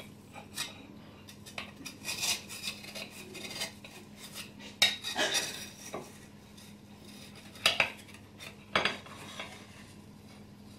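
A spatula scraping and clinking against a baking tin and a ceramic plate while a piece of baked cookie is lifted out, in scattered short taps with a few louder clinks about five, eight and nine seconds in.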